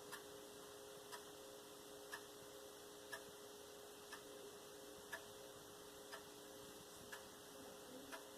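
A clock ticking faintly, once a second, over a low steady hum.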